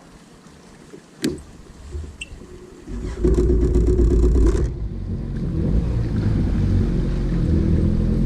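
A Yamaha WaveRunner personal watercraft engine starting: a sharp click about a second in, then about three seconds in the engine catches with a loud surge. It settles after a second and a half into a steady low running rumble.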